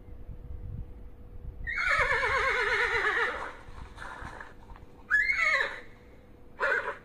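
Horse whinnying. A long quavering neigh falls in pitch about two seconds in, a shorter falling neigh follows about five seconds in, and a brief call comes near the end.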